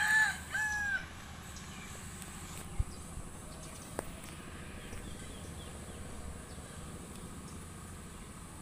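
A rooster crowing, its call ending about a second in, over a steady low background hum. Two short clicks follow, about three and four seconds in.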